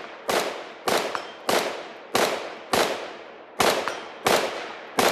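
Eight semi-automatic rifle shots from a 16-inch mid-length AR-15 fitted with a heavy H2 buffer, at a steady pace of about two a second, slowing slightly toward the end. Each crack is followed by a long ringing echo that fades before the next.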